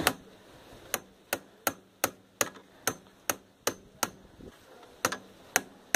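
Hand hammer striking the metal rear swingarm and chain area of a dirt bike: about a dozen sharp blows at two to three a second, with a pause of about a second after four seconds.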